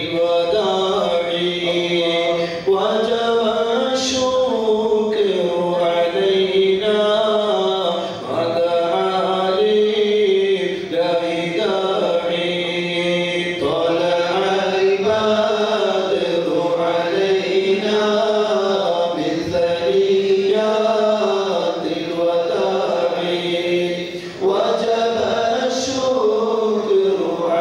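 Men's voices chanting Arabic devotional verses in praise of the Prophet together into microphones, unaccompanied: a slow melody of long held notes that bend and waver, with short breaks for breath.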